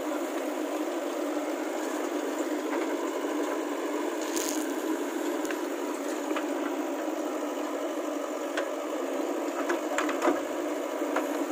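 JCB 3DX backhoe loader at work: its diesel engine runs steadily under hydraulic load while the backhoe bucket scrapes and digs into dry earth. A few sharp knocks stand out, one about four seconds in and more near the end.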